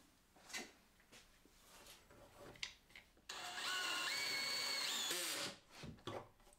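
Cordless drill-driver driving a screw through a pocket hole into a wooden spacer block. A few light knocks come first; then, a bit past halfway, the motor whines for about two seconds with its pitch rising in steps, and winds down as the trigger is released.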